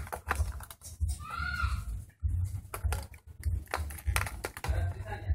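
Stiff plastic blister packaging crackling and clicking in rapid irregular snaps as it is bent and pried open by hand, with dull handling thumps. A brief squeaky tone rises and falls about a second and a half in.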